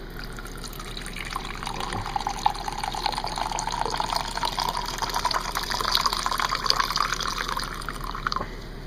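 Liquid being poured steadily into a container, the pitch of the pour rising slowly as the container fills. The pour stops abruptly near the end.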